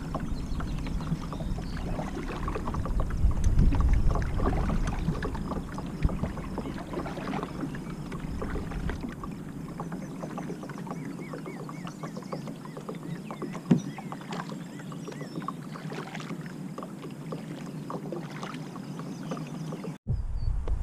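Water sloshing and trickling along the hull of an Old Town PDL pedal kayak under way, with many small splashes and ticks. A low rumble in the first half fades about halfway through, and the sound cuts out briefly near the end.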